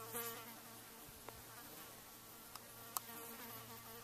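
Biting flies buzzing close to the microphone. The hum is loudest right at the start and swells again after about three seconds. There are a couple of faint clicks and a sharp tick about three seconds in.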